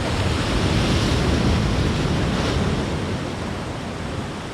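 Sea surf washing in a swell that builds and then eases, with wind buffeting the microphone.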